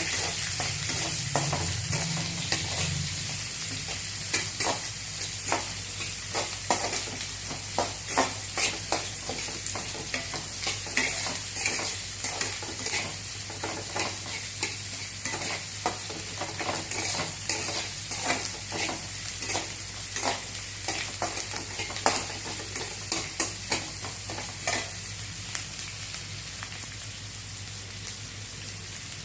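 Chopped onions sizzling as they sauté in hot oil in a pan, with a spoon stirring and scraping against the pan in quick clicks. The stirring stops near the end, leaving only the steady sizzle.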